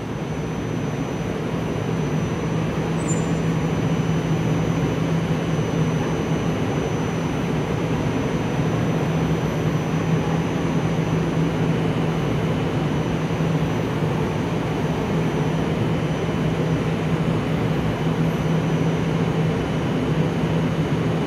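Portram low-floor tram standing at the platform with its onboard equipment running: a steady low hum with a faint high whine above it.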